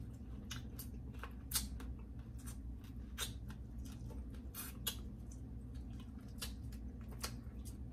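Close-up eating noises from someone eating spicy blue crabs: irregular small clicks and crackles of crab shell, with wet mouth sounds, over a steady low hum.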